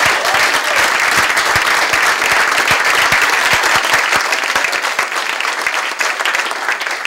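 An audience applauding, many hands clapping at once, easing off a little near the end.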